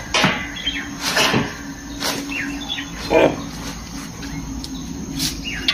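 Long wooden sticks knocking and scraping as they drag cut fodder grass, in short irregular knocks, with small birds chirping in the background.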